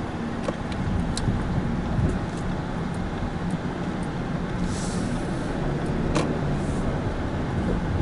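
In-cabin running noise of a Subaru Impreza Sport 1.6i-L with its 1.6-litre FB16 flat-four and Lineartronic CVT, driving through town: a steady low rumble of engine and tyres on the road. A few light clicks come through, and a brief hiss about five seconds in.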